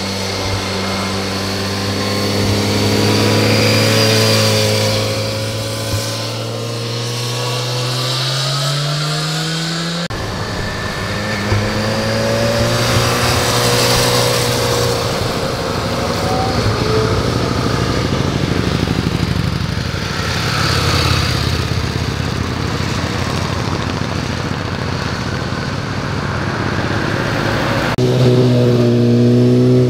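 Motorcycle engines accelerating out of a bend and passing close by, one after another, each note rising in pitch as it pulls away. Near the end a car's engine joins with a steadier note.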